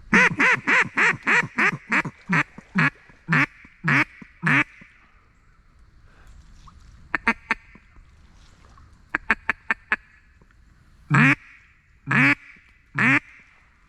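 Hen-mallard quacking on a duck call: a descending run of about a dozen quacks that slow and fade, then a quick string of short clucking notes, then three single quacks about a second apart near the end, calling back a circling mallard.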